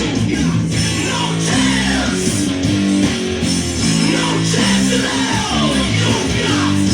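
Intro music led by guitar, with sustained notes changing every half second or so.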